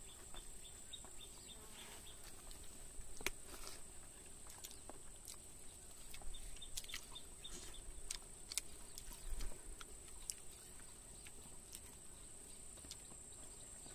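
Quiet hand-eating sounds: fingers working rice on a banana leaf and chewing, heard as scattered small clicks and smacks. Under them runs a steady high insect drone.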